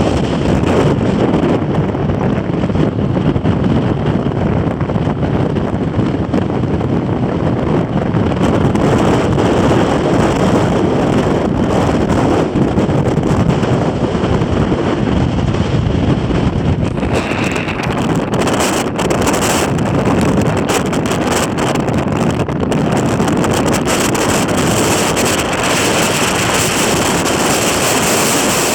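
Gale-force winter wind blasting across the microphone: loud, unbroken wind noise that turns a little hissier in the second half.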